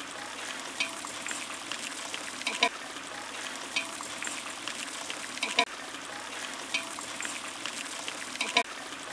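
Tomato and chilli masala bubbling and sizzling in a large metal pot over a wood fire, a steady hiss. A long-handled ladle stirring it knocks against the pot every second or two.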